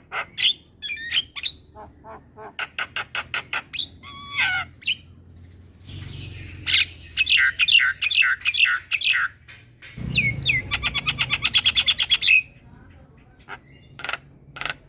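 Javan myna (jalak kebo) singing a loud, varied chattering song. It strings together sharp clicks, short whistled phrases and harsh squawky notes, with a fast rattling trill about two-thirds of the way through.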